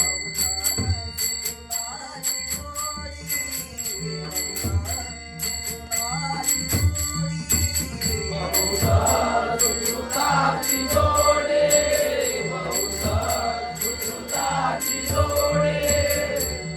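Traditional Konkani devotional bhajan. Small hand cymbals ring in a fast, steady rhythm over deep drum strokes, and sung voices come in more strongly about halfway through.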